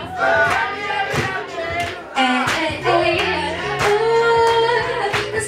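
A woman singing live into a microphone over a backing beat with drum hits and a bass line. Her voice glides between notes and holds a long note near the end.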